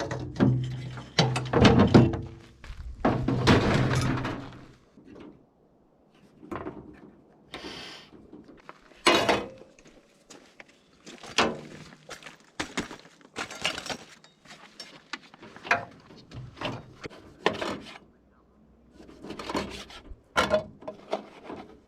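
Irregular thunks, knocks and clatter of camping gear being handled and set out.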